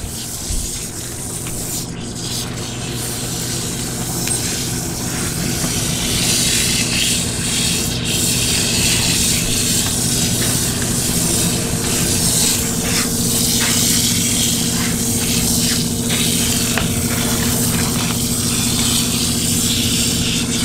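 Recirculating dog-bathing system running: a steady pump hum under the hiss of shampoo water spraying and splashing into a soapy coat. The spray grows louder over the first few seconds and then holds steady.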